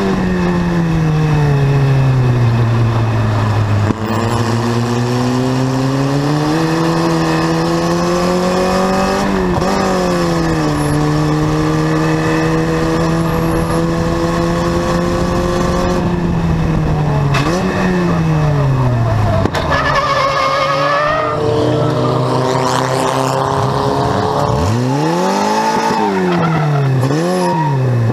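Onboard sound of a Formula Vee race car's air-cooled Volkswagen flat-four engine under hard use. The revs fall under braking, climb through the gears, hold steady on a straight, then drop and rise again through the corners, with a faint tyre squeal in the second half. Near the end come a few quick blips of the throttle, the revs rising and falling twice.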